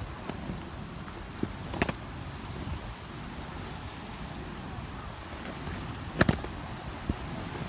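Wood campfire crackling, with a few sharp pops, the loudest about six seconds in, over a low steady rumble.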